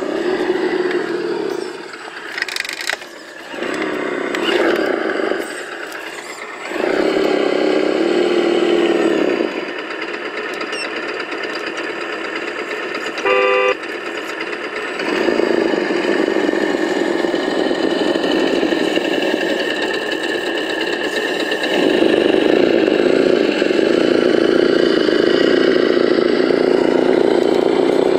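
Simulated engine sound from a SENSE Innovations ESS-One+ sound module in an Axial SCX10 RC crawler, played through the model's onboard speaker, its note rising and settling as the throttle changes. A short horn toot sounds about halfway through.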